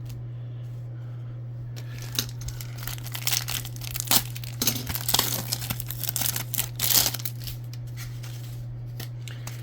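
A trading-card pack wrapper being torn open and crinkled by hand, a run of irregular crackles and rips through the middle of the stretch, over a steady low hum.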